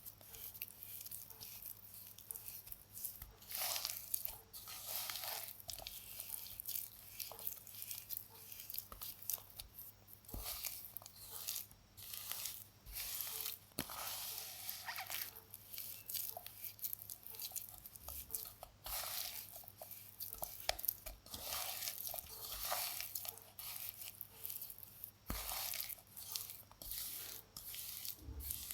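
Baking soda being crumbled: a continuous run of crisp crunching and crackling in irregular clusters.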